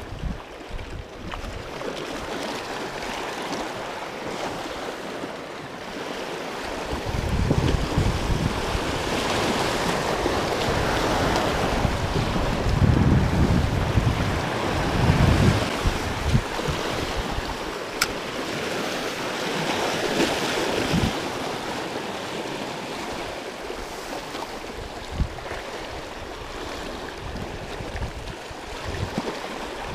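Small sea waves washing and swirling over low rocks at the water's edge, swelling and easing, with gusts of wind buffeting the microphone in low rumbles. A single sharp click about eighteen seconds in.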